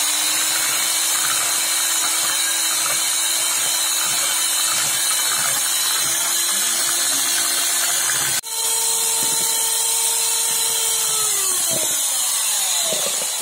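Soviet-era electric hand mixer running steadily, its beaters whisking eggs and sugar in a plastic bowl into a white foam. After a brief break about eight seconds in, its hum returns at a higher pitch. Near the end the motor winds down, its pitch falling as it is switched off.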